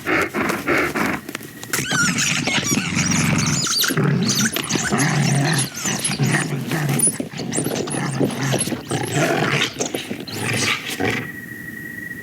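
Film sound effects of an animal snarling, growling and squealing in a dense, continuous stretch. About eleven seconds in, this gives way to a steady high tone.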